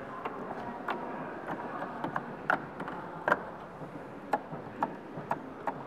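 Sharp clicks of a pipe organ console's stop controls and switches being pressed one after another, irregularly about every half second, over a faint steady hiss.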